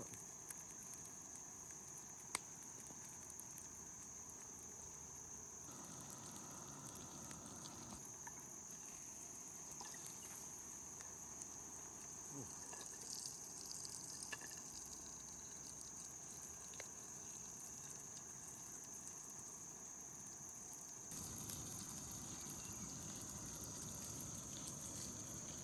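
Battered bass frying in hot oil: a steady sizzle with small scattered pops, getting louder near the end.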